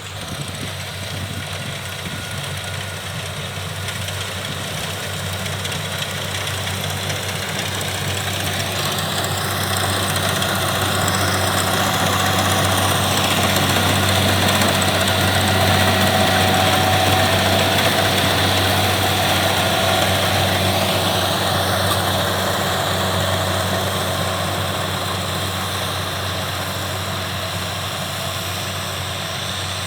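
Kubota DC70 rice combine harvester's diesel engine running steadily with a deep hum. It grows louder to a peak about halfway through, then fades as the machine moves on.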